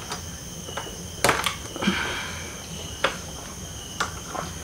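A few light clicks and taps of a syringe and tube being handled at a motorcycle's front brake caliper while the brake is reverse-bled, over a faint steady high hum.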